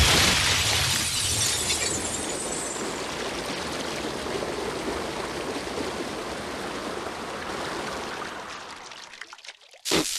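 Cartoon sound effect of a sudden gush of water that floods in and pours steadily, slowly dying away, with a few drips near the end.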